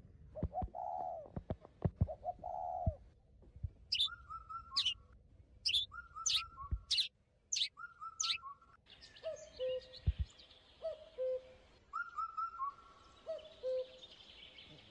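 Birds chirping: short bird-like calls, with the same brief chirp phrase repeating every couple of seconds.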